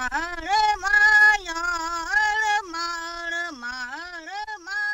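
A single voice singing an unaccompanied melody, holding notes that step up and down in pitch.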